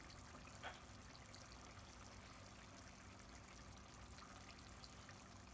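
Near silence: the faint steady hiss and scattered soft ticks of a coconut-milk fish curry simmering in a pan on the stove, with one light tap a little under a second in.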